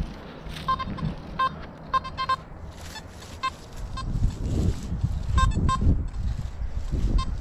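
Metal detector giving short, same-pitched beeps at irregular intervals as the coil is swept over the ground, with a low rumble of handling or wind from about four seconds in.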